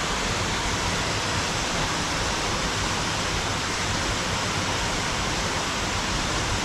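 Steady rushing of falling water, an even unbroken roar.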